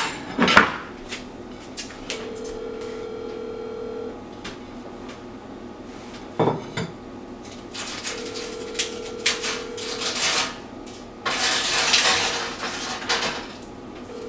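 Telephone ringback tone heard through a phone's speaker: a steady tone for about two seconds, twice, with four seconds between, and a third ring starting at the very end, while the line rings unanswered. Dishes and utensils clatter around it, loudest near the start and about eleven seconds in.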